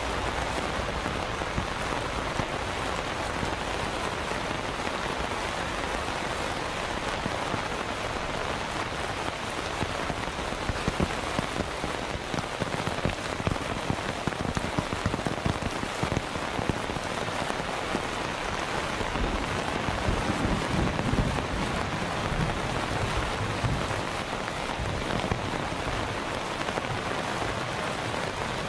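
Heavy monsoon downpour falling steadily on floodwater and paving, a dense unbroken hiss that grows a little louder with some low rumble about twenty seconds in.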